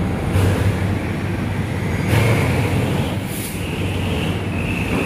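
GE 'GEK' diesel-electric locomotive pulling into a platform, its engine running with a steady low rumble. A few short hissing bursts come through, and a high squeal starts a little past halfway.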